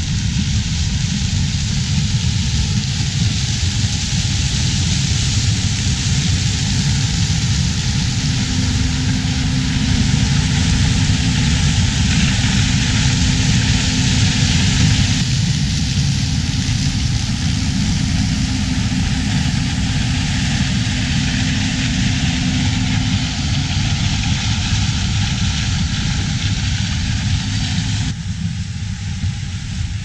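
Steady, loud mechanical running noise, a deep rumble with a hiss over it and a faint steady hum in the middle stretch. It changes abruptly about two seconds before the end, as at an edit.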